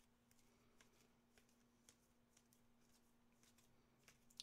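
Near silence, with a faint steady hum and scattered faint ticks of trading cards and pack wrappers being handled.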